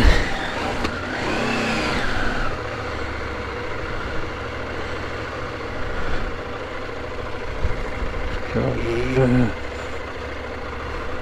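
Motorcycle engines running as the riders pull away. About a second in, one engine revs up and back down, then settles into a steady run.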